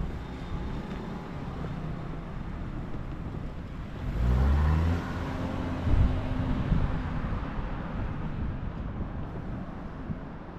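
An engine speeding up with a rising pitch about four seconds in, then holding steady for a few seconds before fading, over low wind rumble on the microphone. A sharp low thump comes about six seconds in.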